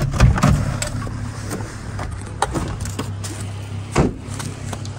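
Jeep engine idling with a steady low hum while someone climbs out. There is a heavy thump just after the start, then footsteps crunching through dry leaves and sticks, with a sharper snap about four seconds in.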